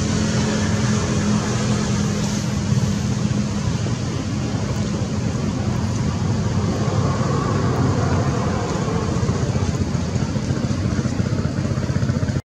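Steady rumble of road traffic, with a low hum in the first few seconds; it cuts off suddenly near the end.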